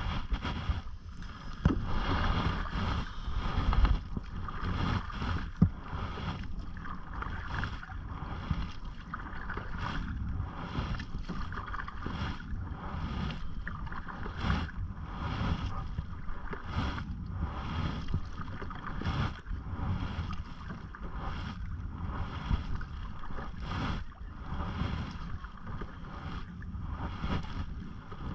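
Canoe paddling: a paddle dipping and pulling through the water in steady strokes, with repeated small splashes and water lapping at the hull. Wind rumbles on the microphone throughout.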